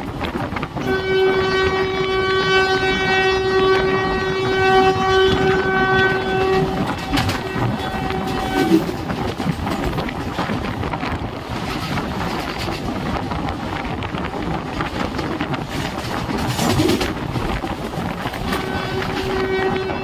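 A train's locomotive horn sounds one long steady blast for about six seconds, then breaks into short toots until about nine seconds in, and sounds again near the end. Under it runs the steady rush and clatter of the moving coaches on the track.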